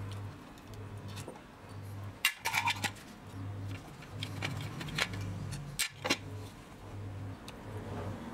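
Screwdriver working the screws out of the metal gear housing of an old National corded drill: small metallic clicks and scrapes, with a cluster of sharper clinks a couple of seconds in and more around five to six seconds in. A low hum pulses on and off behind it.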